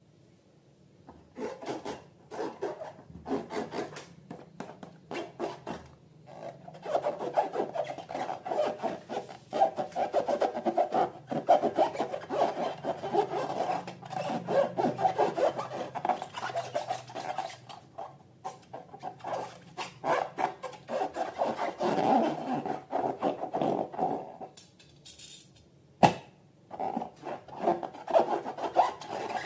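Slime being worked and mixed: a continuous rapid crackling, rubbing sound. It pauses briefly near the end, then a single sharp click, then the rubbing starts again.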